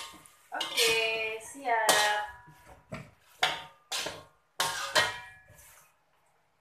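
A metal spatula scraping and clanking against a metal wok while stir-frying, with about six sharp knocks that each ring briefly. It dies away about six seconds in.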